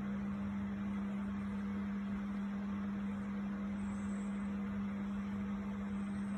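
A steady low hum with an even hiss behind it, unchanging throughout, like a motor or fan running.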